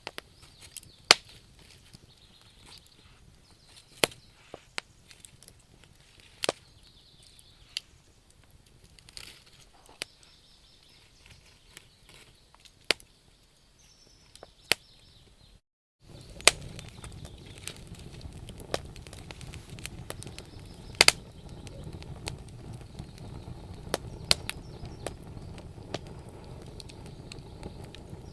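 Wood fire crackling, with sharp, irregular pops and snaps. About halfway through the sound drops out for a moment, and then a steadier low rushing of the flames sits under the pops.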